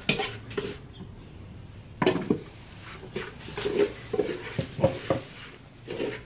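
A utensil clinking and scraping against a metal cooking pot while the contents are stirred, in about ten irregular knocks.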